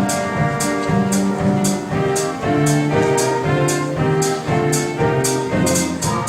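Instrumental stage-musical music, with sustained melodic notes over a steady beat marked by a crisp hit about twice a second.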